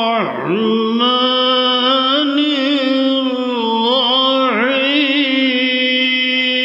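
A man chanting one long, held melodic line with no pause for breath, his pitch dipping in ornamented turns about half a second in and again about four and a half seconds in.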